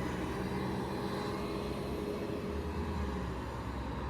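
Bus engine running with a low, steady drone; its deepest tone grows stronger about two and a half seconds in.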